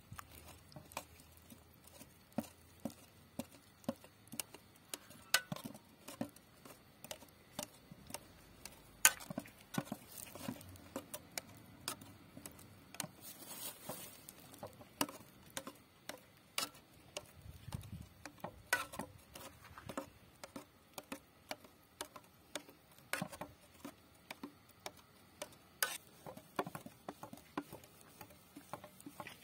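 Thick eggplant-and-grain mash being stirred and beaten in an aluminium pot: irregular sharp clicks and taps of the utensil against the pot, a few a second, with soft wet sounds of the mash.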